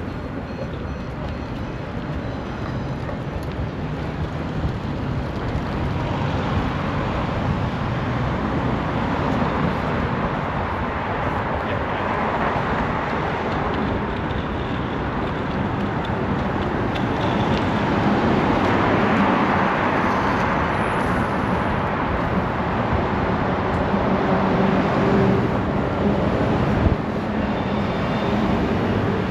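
City road traffic noise: a steady rush of passing cars, swelling twice as vehicles go by, with one short sharp knock near the end.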